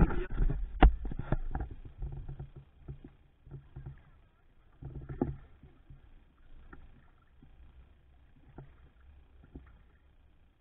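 Kayak paddling: a few sharp knocks against the kayak hull in the first second or so, the loudest about a second in, then quieter paddle splashes and drips on calm water, with a small burst of splashing around five seconds in.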